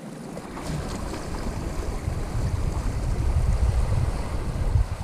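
Wind buffeting the microphone in uneven low gusts that grow stronger after about two seconds, over the soft wash of small waves lapping against the rocks.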